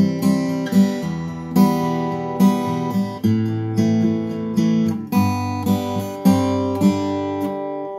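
Cat's Eyes CE-1200D dreadnought acoustic guitar, chords strummed at a slow, even pace of about one strum a second and changing every few strokes. Near the end the last chord rings out and fades.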